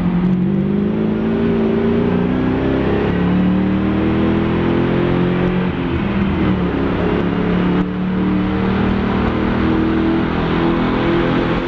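Mopar-engined Nissan Fairlady Z race car's engine running hard. Its pitch climbs, drops about three to four seconds in, wavers, then climbs again from about eight seconds with throttle and gear changes.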